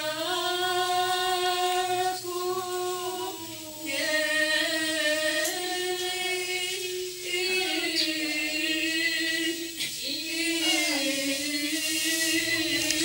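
Orthodox liturgical chant: voices singing a slow, unaccompanied melody in long held notes, in phrases a few seconds long.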